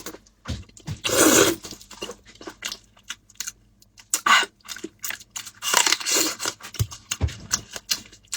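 Close-up eating and food-handling sounds: tearing and crinkling, with a run of short clicks and a few louder noisy rustles, the loudest about a second in and around six seconds in.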